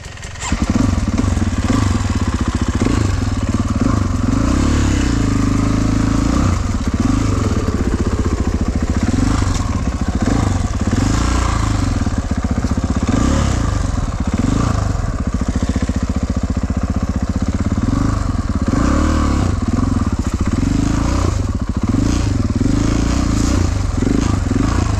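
A 450 four-stroke enduro motorcycle engine running close to the microphone, the engine revs rising and falling continually as the bike is ridden over rocks. It gets louder about half a second in as the throttle opens.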